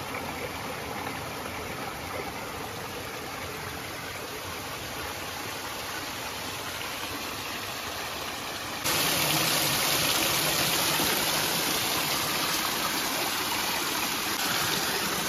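Water rushing in a stream, a steady even rush that jumps abruptly louder about nine seconds in.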